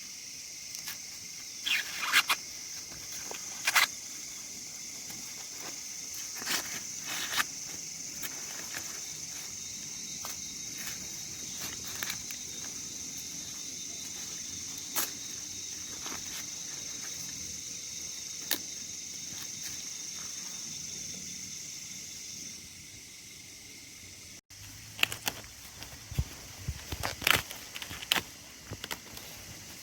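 Steady high-pitched insect drone, like crickets or cicadas, with scattered sharp snaps and rustles. The drone stops shortly before the end, and a quick run of crackling snaps and taps follows.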